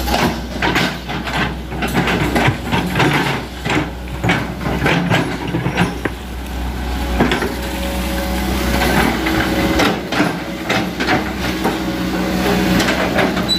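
A Hitachi ZX100 excavator's diesel engine running steadily under load, with frequent knocks and clatter as the machine works.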